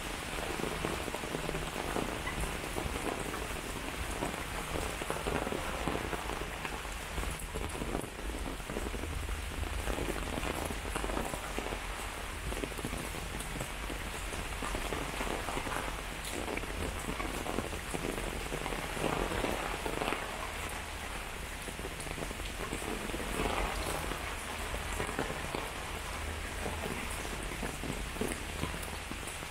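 Steady rain falling, an even patter with no break.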